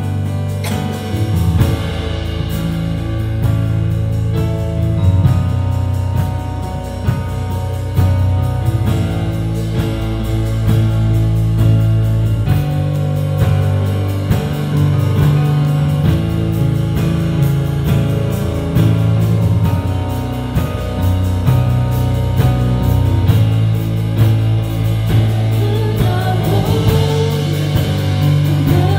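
Live worship band playing a song on a Roland keyboard and drum kit, with steady low keyboard notes under the drum beat. A woman's voice comes in singing near the end.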